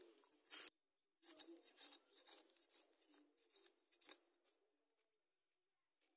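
Fish being scaled by scraping it against the edge of a boti, a curved blade fixed upright on a stand: a short burst of scraping, then a run of quick scraping strokes that fade out after a few seconds.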